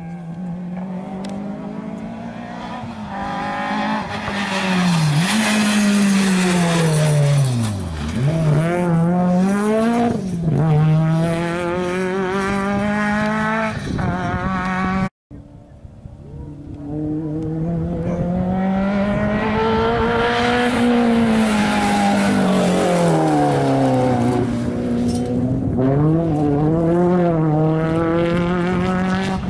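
Rally cars at full attack on a special stage, two passes with a cut between them about halfway. Each engine revs hard, its pitch climbing through the gears, dropping sharply under braking for the corner and climbing again as the car pulls away.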